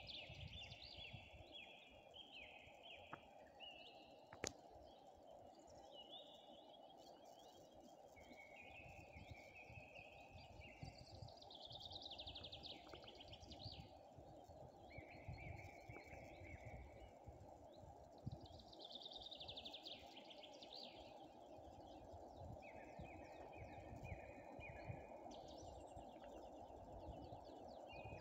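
Songbirds singing short trilled phrases, one after another every few seconds, some sliding down in pitch, over a faint steady low hum.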